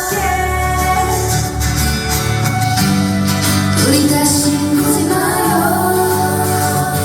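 Pop song: women singing held notes with pitch glides over a steady backing track.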